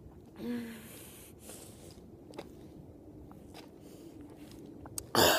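A person gives one short, low groan about half a second in. Then comes quiet room tone with a few faint knocks, and a brief loud rush of noise near the end.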